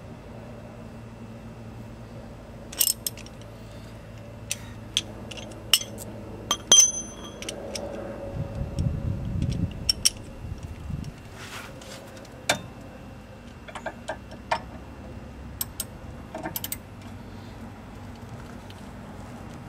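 Hand tools clinking metal on metal: scattered clicks and knocks of a wrench and sockets, with one ringing clink about 7 s in. A low rumble rises and fades between about 8 and 10 s.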